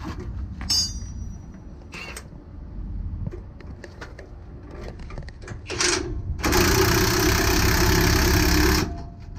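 Cordless impact wrench spinning up briefly, then running for about two and a half seconds before stopping, working the mounting nuts of a trailer's spring brake chamber. Before that come a couple of metallic tool clinks.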